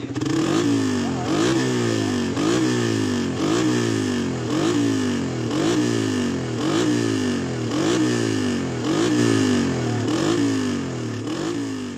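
Sports motorcycle with an aftermarket racing exhaust, its engine revved over and over in a steady rhythm, rising and dropping about once a second, fading out near the end.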